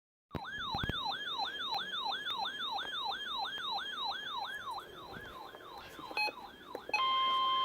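Electronic siren in a rapid yelp, each sweep falling in pitch about three times a second and fading away in the last few seconds. A couple of short electronic blips follow, then the steady NOAA Weather Radio warning alarm tone comes on loud near the end.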